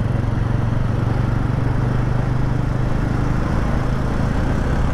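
TVS Ronin's single-cylinder engine running steadily as the motorcycle gathers speed in traffic, with wind and road noise, heard from the rider's seat.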